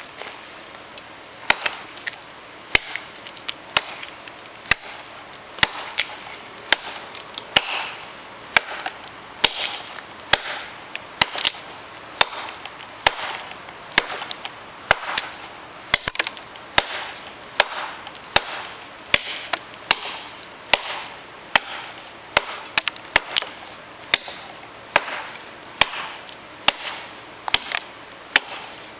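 Machete chopping into a small log: repeated sharp strikes of the steel blade biting into the wood, about one to two a second, beginning about a second and a half in.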